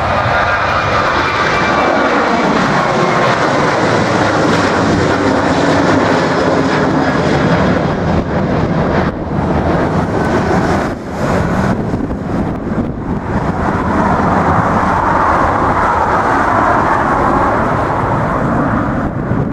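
Boeing 737-800's CFM56 turbofan engines at takeoff thrust as the jet climbs out: a loud, steady jet noise with a faint high whine in the first few seconds. It drops briefly a few times about halfway through.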